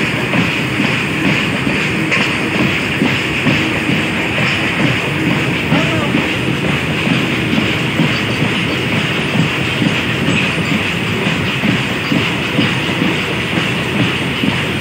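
Long freight trains of open-top wagons rolling past on the tracks on either side, a steady heavy rumble with the wheels clattering over the rails and a hissing squeal of wheel on rail.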